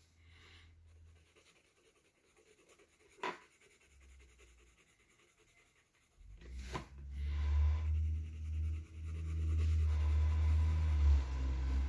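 Coloured pencil scratching as it shades on sketchbook paper, faint at first, with a single click a few seconds in. About six seconds in, a loud low rumble starts and carries on.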